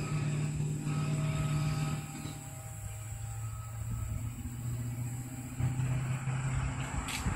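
A steady low engine drone with a pitched hum that drops about two seconds in and rises again near six seconds.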